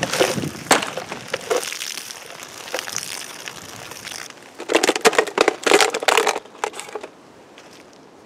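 Water gushing out of a knife-punctured plastic bottle and splashing onto dry leaves, stopping about four seconds in. Then the emptied plastic bottle crinkles and crackles loudly for a couple of seconds as it collapses.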